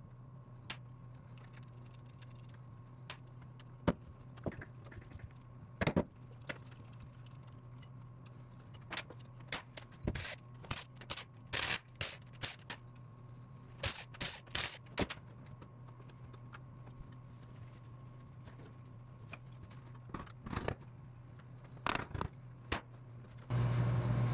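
Ratchet clicks and metal tool clinks as the bolts of a 12-bolt Chevy differential cover are loosened, irregular at first, then in quick runs, over a steady low hum. Near the end the cover breaks free and gear oil pours out and splashes into a drain pan.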